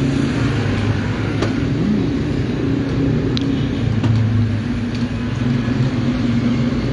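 Steady low hum of motor vehicle engines in street traffic, with a few faint light clicks.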